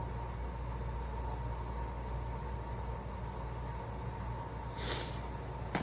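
Steady low room hum with a faint steady tone, a short breathy noise about five seconds in, and a soft click just before the end.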